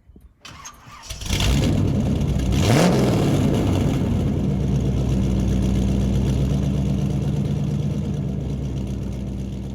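Mini Wedge race car's small engine starting: it cranks briefly, catches about a second in, revs up once shortly after, then settles into a steady idle.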